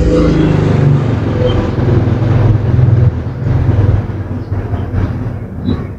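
A loud, steady low rumble like a running engine, with a deep hum, easing off after about four seconds.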